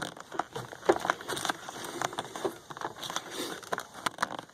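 Irregular plastic clicks and knocks from hands working at the mass airflow sensor's wiring connector on the stock intake, which is stuck and won't come free.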